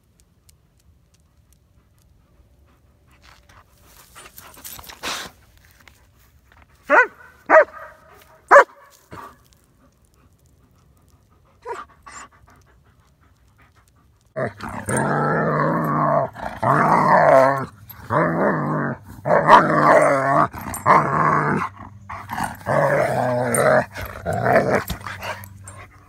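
Dogs barking and growling: three sharp barks about seven to nine seconds in, then, from about halfway, a long loud run of growls and barks in bouts of about a second each.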